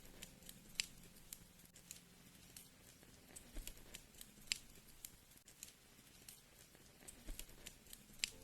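Wood fire crackling: faint, irregular sharp pops and snaps, sometimes several in quick succession, over a steady low hum.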